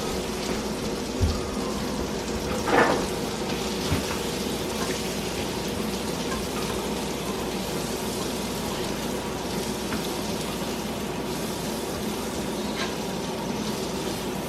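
Green beans sizzling in a hot frying pan, a steady hiss, with a few brief knocks in the first few seconds.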